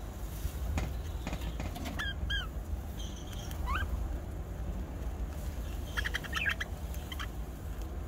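Budgerigars chirping: two short curved chirps about two seconds in, a rising chirp a little later, and a quick run of short chirps around six seconds in.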